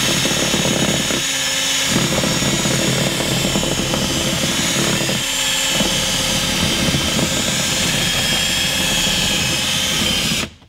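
Cordless drill with a large bit drilling out a metal rivet that holds a car door speaker mount, running steadily under load before cutting off near the end.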